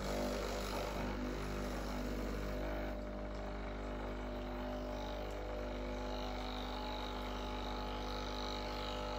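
Breville Barista Express BES870 espresso machine running a water flush through the group head: its vibratory pump hums steadily while water sprays from the shower screen into the portafilter held beneath it. The pump starts abruptly and stops near the end.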